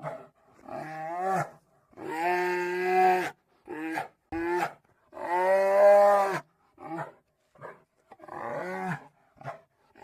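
Mother bear vocal sound effects from an animated film: a string of pitched, drawn-out bear calls. Two long calls of over a second each are separated by several short grunting calls.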